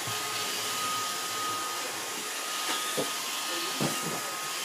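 Roomba robot vacuum running: a steady whirring hiss with a thin high whine, and a couple of faint knocks about three seconds in.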